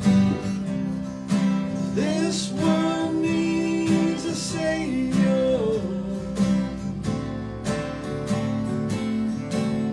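Live acoustic country-gospel band: two acoustic guitars strumming, with a fiddle playing held, sliding notes over them.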